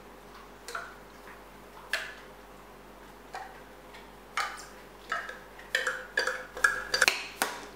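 Metal spoon scraping and tapping against a tin of tuna: light clicks and clinks, a few spaced out at first, then coming quickly in the second half.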